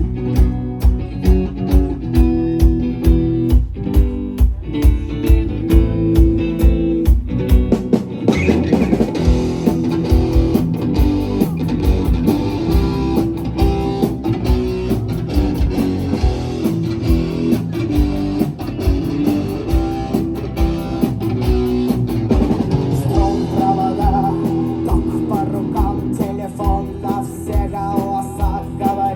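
Rock band playing live: guitar over a steady drum beat, with the full band coming in with a fuller sound about eight seconds in.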